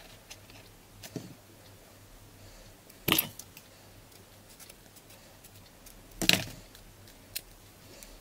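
Scissors snipping through a thin wooden skewer: two sharp cracks about three seconds apart, with a few lighter clicks of handling in between.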